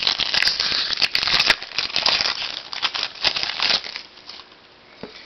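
Trading-card pack wrapper crinkling and crackling as it is torn open and pulled off the cards, a dense irregular crackle that stops about four seconds in.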